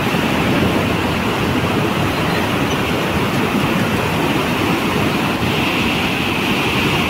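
A river in full flood, its fast muddy torrent giving a loud, steady rushing.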